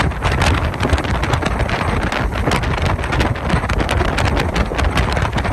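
Wind buffeting the microphone on a moving ferry, in irregular gusts over a continuous low rumble of the boat under way.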